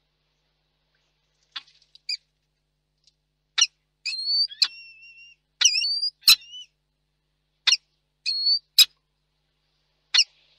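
Peregrine falcon calling: a quick series of about a dozen sharp, squeaky calls starting about a second and a half in. Several of the calls run on into short whining notes that bend in pitch.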